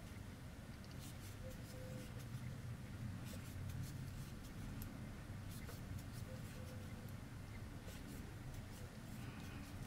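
Faint, irregular small ticks and scratches of a crochet hook catching and pulling yarn through stitches, over a low steady hum.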